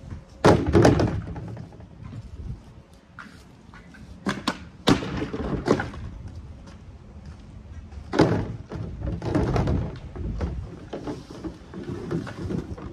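Hollow plastic storage-shed panels being picked up, stacked and dropped: a run of knocks and thunks, the loudest about half a second in, around five seconds and around eight seconds.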